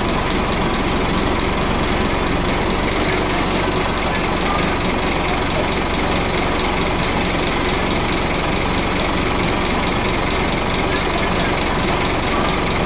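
Scania N310UA articulated bus's rear-mounted diesel engine idling steadily, heard from inside the cabin at the back seat.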